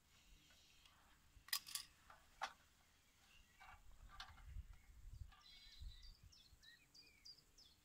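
Faint bird chirping outdoors, a quick run of short falling chirps in the second half. Over it come a few sharp clicks, twice close together about one and a half seconds in, once about two and a half seconds in and once near four seconds, as hand tools and small pipe parts are handled, with a few soft low thumps.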